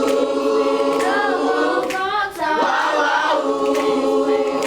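Middle school chorus singing a cappella, several voices holding notes together with a change of pitch a little past halfway.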